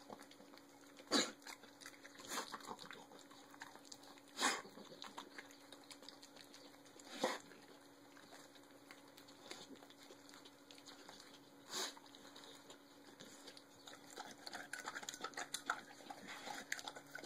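Dog eating raw rabbit and chicken leg quarters: quiet chewing broken by a handful of sharp crunches a few seconds apart as it bites through bone. Near the end it laps water from a steel bowl in a quick run of small wet clicks.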